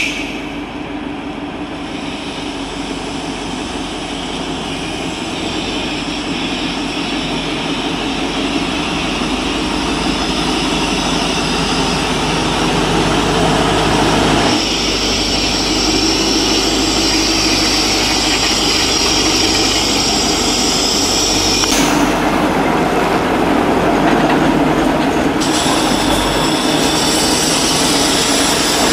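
Heavy diesel engine of a fire brigade aerial platform truck running as it crawls along a narrow street, getting louder as it draws close.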